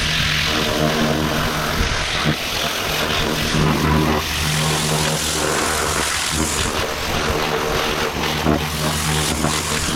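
Pressure washer running: a steady pump hum under the hiss of the water jet, which is blasting underseal off old car wings.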